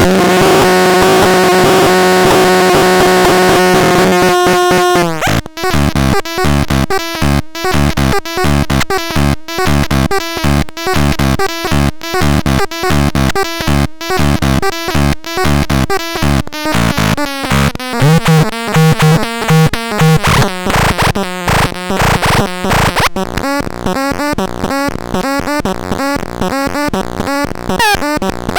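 Electronic synthesizer demo: a held chord for about the first five seconds, then a choppy, rhythmic pattern of short repeated notes over a low line that steps down partway through.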